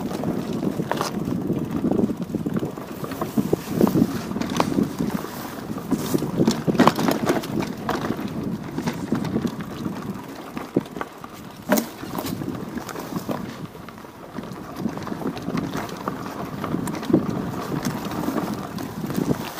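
Wind buffeting an action camera's microphone in an uneven low rumble, with scattered sharp clicks and knocks.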